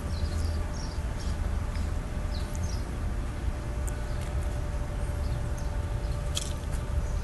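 Outdoor background noise: a steady low rumble with a thin steady hum, and scattered faint high chirps and clicks.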